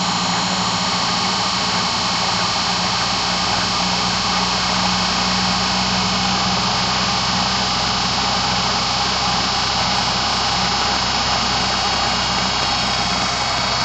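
Duyunov 'Slavyanka' combined-winding induction motor running steadily under test, a constant whirring noise with a low hum, its supply current being raised.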